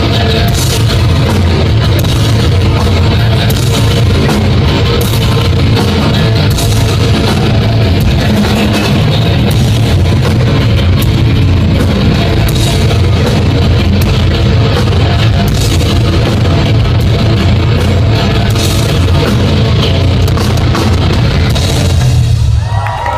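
Heavy metal band playing live: distorted electric guitars, bass and a drum kit in a loud, dense, steady wall of sound that stops abruptly just before the end.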